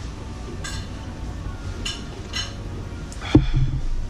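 A few short slurps of ramen broth drunk straight from a large bowl held to the mouth. About three and a half seconds in comes the loudest sound, a heavy thud as the big ceramic bowl is set down on the table.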